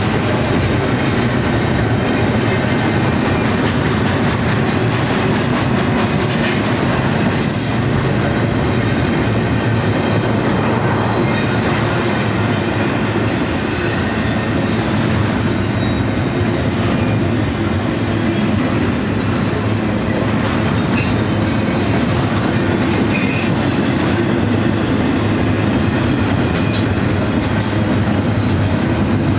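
Double-stack intermodal freight train's loaded well cars rolling steadily past on steel wheels, a continuous rumble and rattle with scattered clanks from the car joints. A brief high wheel squeal cuts in about seven seconds in.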